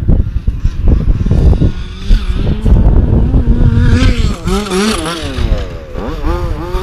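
1/5-scale RC buggy's 26cc long-block two-stroke engine revving, its pitch rising and falling in quick swoops from about three seconds in as the throttle is worked. A low rumble on the microphone runs underneath.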